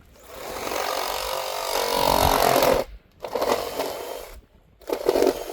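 A handheld power tool run in three bursts: a long run of about two and a half seconds, a shorter one, and a brief one near the end.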